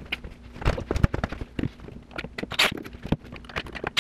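Irregular knocks, taps and short scrapes of a 2x4 wood cleat being pushed up into a ceiling opening and fitted against plywood subfloor, with a cordless driver handled overhead.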